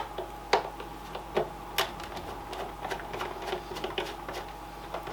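Irregular clicks and light knocks of a screwdriver and plastic parts as a gaming steering wheel's plastic housing is being unscrewed, a few sharper clicks standing out, over a faint steady hum.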